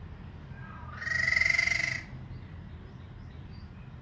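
A talking pet bird gives one loud call about a second in, lasting about a second: a steady high note with a hissy rasp over it.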